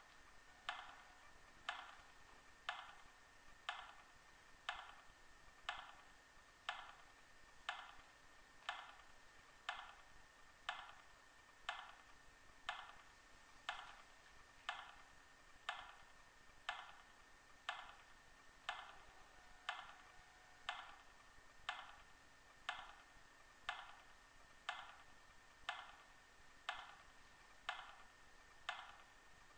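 Steady clock-like ticking, one tick about every second, evenly paced throughout.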